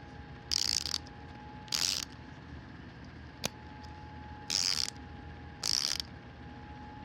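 SabreCut MRSC04 mini micro ratchet, 72-tooth, ratcheting in four short bursts of fast fine clicking, with one sharp single click in the middle.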